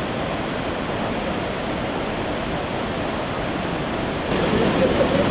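Detian Waterfall rushing in a steady, even noise, which grows louder about four seconds in.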